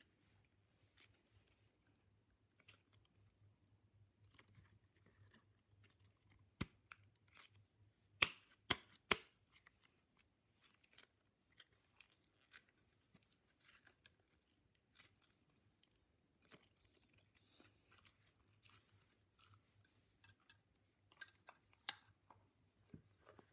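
Glitter slime being squished and stretched by hand: quiet sticky crackles and small pops, with a cluster of sharper, louder pops about eight to nine seconds in and a few more near the end.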